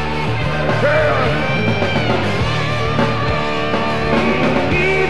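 Rock song playing: electric guitar over bass and a drum beat.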